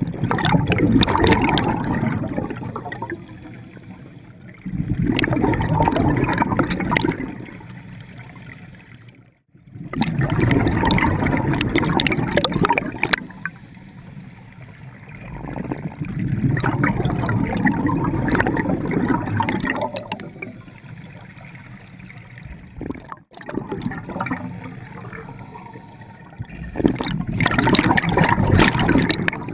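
Scuba regulator exhaust bubbles heard underwater as a diver breathes out. There are five loud bursts of bubbling, each a few seconds long, with quieter stretches between them as the diver breathes in.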